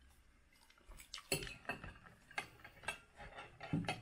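A metal fork clinking and scraping against a plate of food: a run of irregular clicks and knocks starting about a second in.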